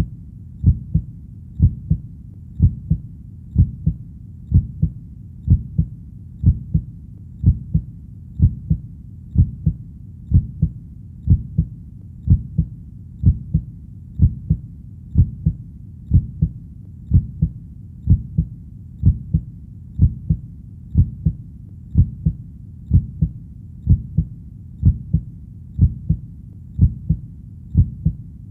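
Human heartbeat: a steady lub-dub double beat at about one beat a second, deep and muffled, with a low steady background between beats.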